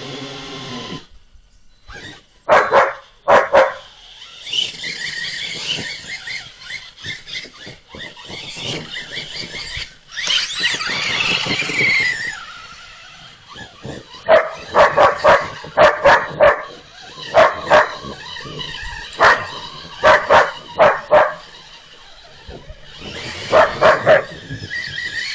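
Dogs barking in loud, sharp volleys: a couple of barks a few seconds in, a long run of them over the middle stretch, and a last pair near the end. Between the volleys runs the whine of the RC toy truck's electric motor, rising and falling in pitch.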